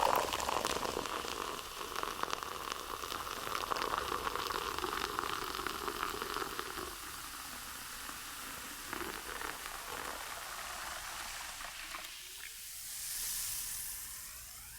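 A dense sizzling, crackling hiss, full of fine pops, that slowly fades, with a faint rising tone near the end.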